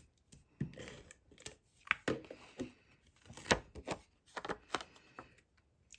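Paper and cardstock being handled and pressed together as designer paper is adhered to a cardstock layer: irregular sharp clicks and taps with short rustles of paper.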